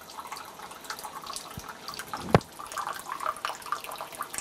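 Alkaline water running from a LIFE Ionizers M7 water ionizer's flexible spout into a drinking glass over a steel sink, a steady splashing trickle. It is broken by a soft knock and then one sharp click a little past two seconds in.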